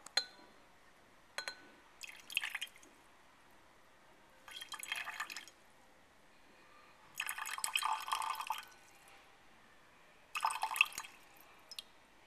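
Potassium nitrate solution poured slowly from a glass beaker into a glass beaker of cobalt(II) chloride solution, in about six separate trickles and splashes, the longest about a second and a half.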